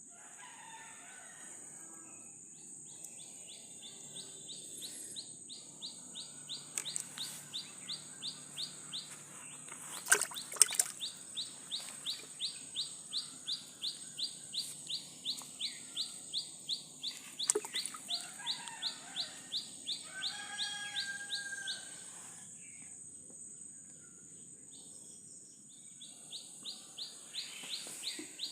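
Birds calling: one repeats a short, high call about twice a second, pausing for a few seconds near the end, while others give brief calls a little past the middle, over a steady high insect whine. A few sharp knocks stand out around the tenth and seventeenth seconds.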